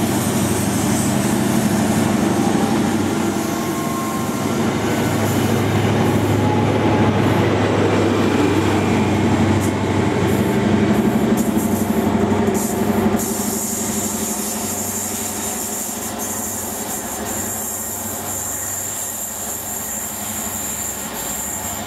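InterCity 125 train passing: the diesel engine of a Class 43 power car running, over the rumble of wheels on the rails. About halfway through the sound eases a little and a steady high-pitched whine comes in.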